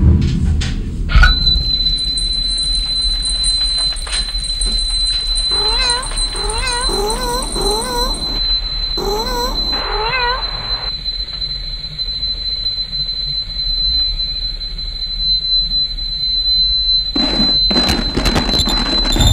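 A steady high-pitched tone holds over a low rumble. About six seconds in, a cat gives a run of short rising meows, about two a second, for some five seconds. There is a burst of noise near the end.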